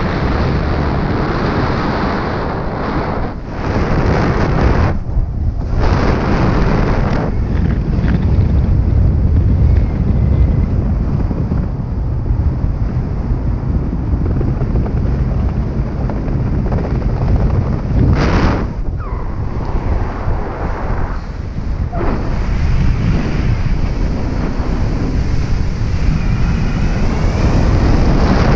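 Loud wind rushing over the camera microphone as a paraglider pilot on skis flies low over a glacier. The rush swells and drops suddenly several times.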